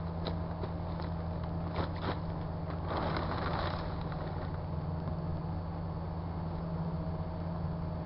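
Microwave oven running with a steady low hum while it heats a bottle of school glue. A few faint clicks, and a brief rustle about three seconds in.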